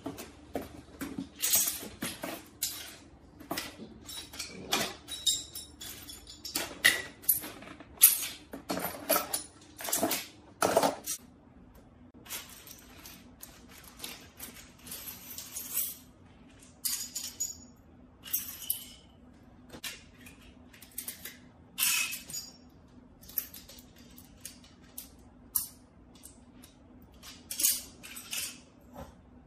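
Slingshot-rifle kit parts handled on a tile floor: plastic pieces and metal barrel tubes knocking and clattering, small metal nuts and bolts clinking. The knocks are densest and loudest in the first half, sparser later, over a faint steady hum.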